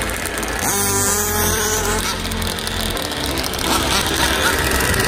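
Radio-controlled drag car's motor running: its pitch rises about a second in, then holds steady for a second or so.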